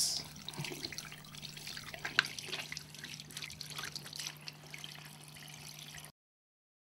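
Water running from a tap into a sink as hands are rinsed under the stream, with light splashing and dripping over a faint steady hum. It cuts off suddenly near the end.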